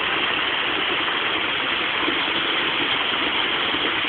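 Waterfall, a steady, even rush of falling water with no change in level.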